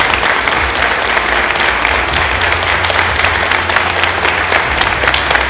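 Audience applauding: many people clapping at once in a dense, steady clapping.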